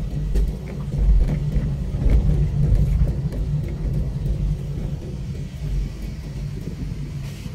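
Low, steady rumble of a car's engine and tyres heard from inside the cabin as the car drives slowly.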